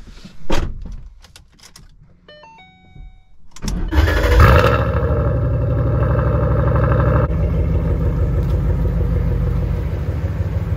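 Ford Mustang GT's 5.0-litre V8 being started with the key: a few clicks and a short electronic chime, then about four seconds in the engine cranks and catches with a brief rise in revs, and settles into a steady idle.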